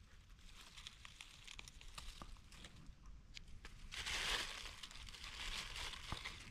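Dry leaf litter and twigs rustling and crackling, with many small snaps and a louder rustle about four seconds in.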